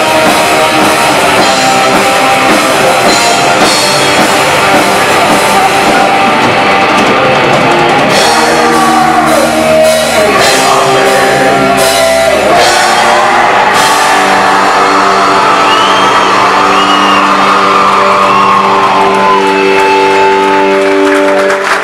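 Black metal band playing live, with distorted guitars and a drum kit. About two-thirds of the way through, the drum hits fall away and long held guitar chords ring on, closing out the song.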